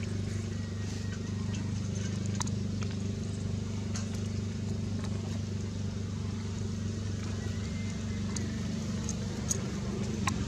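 A steady low mechanical hum, with a few faint scattered clicks.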